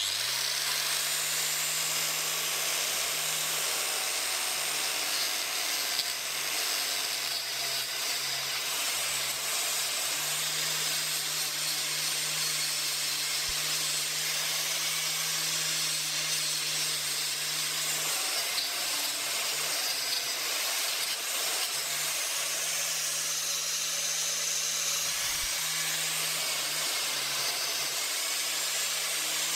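Angle grinder fitted with a scouring pad disc starting up and running steadily, its hum rising in pitch as it spins up and then holding, with a constant hiss as the pad works the steel of a masonry hammer head for rough polishing. The hum dips briefly now and then later on.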